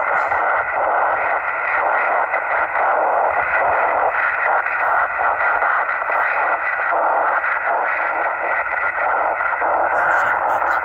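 Steady hiss from a single-sideband (USB) radio receiver, the noise held to the narrow voice band. The receiver is listening through the 10 GHz receive chain for a weak rain-scatter reply.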